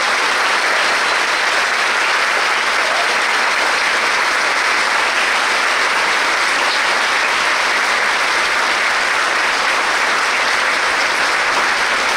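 A large audience applauding steadily, many hands clapping at once in a big auditorium.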